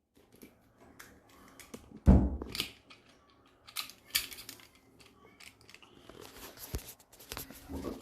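Metal clicks and clunks of a lever door handle being fitted onto its latch mechanism, with one loud thunk about two seconds in and scattered small clicks after it.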